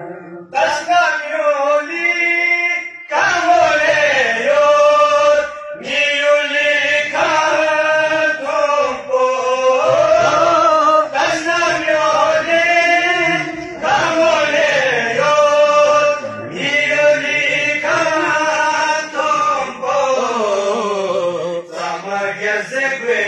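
Male voices singing a devotional kalam in long held, wavering phrases, each a second or two long, with brief breaths between them.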